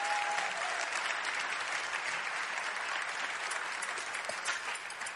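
Congregation applauding, a dense patter of many hands clapping that slowly thins out into a few separate claps near the end.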